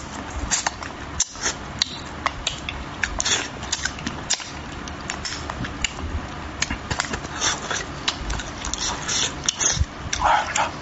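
Close-miked eating of spicy braised fish: wet chewing, lip smacks and sucking at the fish, a rapid scatter of small mouth clicks with short hissy sucking noises.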